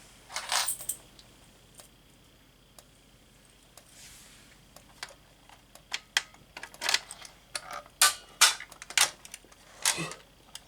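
Irregular sharp clicks and taps: a short rustle-like burst early on, a quiet stretch, then clicks coming more often from about halfway through.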